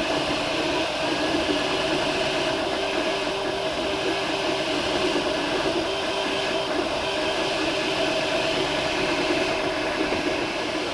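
MakerBot Replicator 2 3D printer printing in PLA: a steady whir with the stepper motors sounding in short tones that keep changing pitch as the print head moves.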